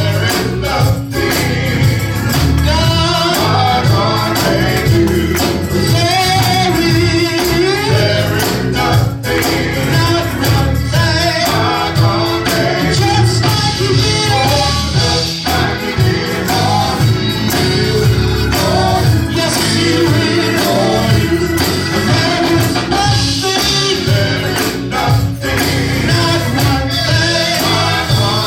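Live gospel music: a band with bass, drums and keyboard playing a steady beat while voices sing, with a tambourine shaking along.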